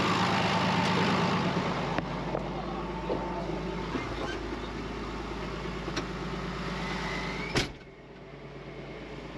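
John Deere tractor's diesel engine running steadily at idle, heard first from beside the tractor and then from inside the cab. Near the end a cab door shuts with a sharp knock, and after it the engine sounds quieter and muffled.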